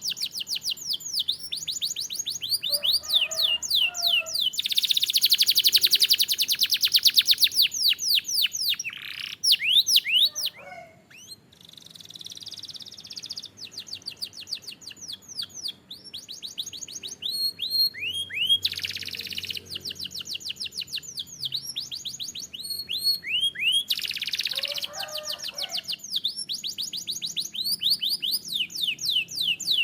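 Canary singing a long, varied song of fast trills, rapid rattling runs and quick down-slurred notes, with a short pause about eleven seconds in.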